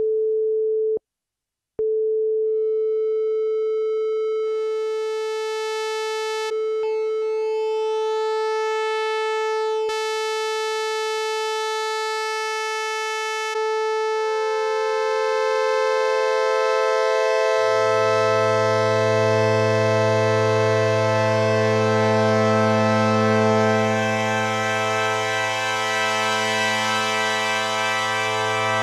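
Radikal Technologies Delta CEP A synthesizer holding a single pure tone, cut briefly about a second in. Its overtones come in one after another over the next fifteen seconds, and the tone grows brighter. Lower notes join a little after halfway, making a full sustained chord.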